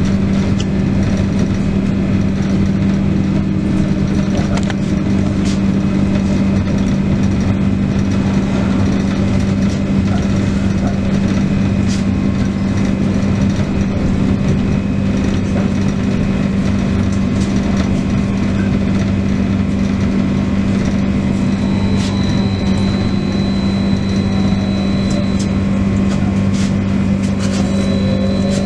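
Trolleybus under way, heard from inside the cabin: a steady electrical hum over road rumble and tyre noise. Near the end the electric traction drive's whine falls, then starts to rise again.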